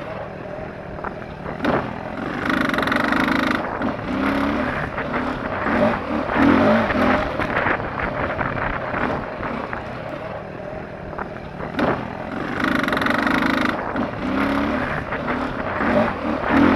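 2009 KTM 530 single-cylinder four-stroke enduro engine ridden on a dirt trail, revving up and down repeatedly as the throttle opens and closes.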